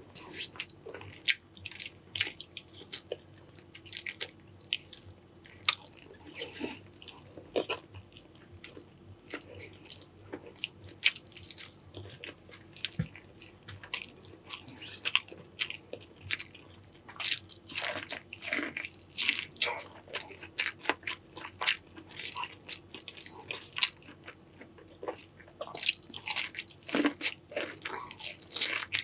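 A person eating a seafood boil close to the microphone: steady biting, crunching and chewing, made of many quick sharp crackles, busier in a stretch past the middle and again near the end.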